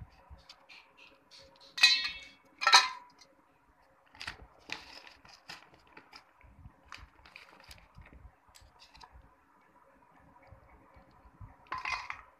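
Two loud clinks of steel dishware, a steel bowl and plate being knocked, each ringing briefly, then scattered light clicks. Near the end comes a short splash as a hand dips into the water among the soaking slate pencils in the steel bowl.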